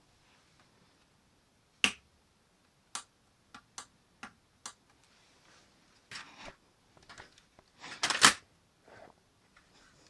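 Plastic clicks and snaps of a Lego pump-action shotgun mechanism being worked by hand: one sharp snap about two seconds in, a run of lighter clicks, a short rattle, and the loudest clattering clack about eight seconds in.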